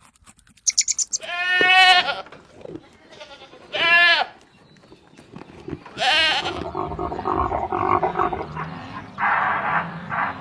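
Goat bleating three times, each call short with stacked harmonics and a wavering pitch, a couple of seconds apart. After the third call comes a busier stretch of rougher, noisier animal sound.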